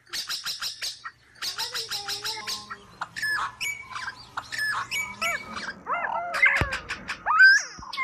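Birds chirping: two quick chattering trills in the first couple of seconds, then a run of short whistled calls that rise and fall, louder toward the end.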